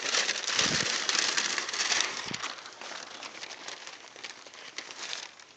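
Newspaper masking sheets being pulled off and crumpled, a crackly rustling that is loudest for the first couple of seconds and then dies away.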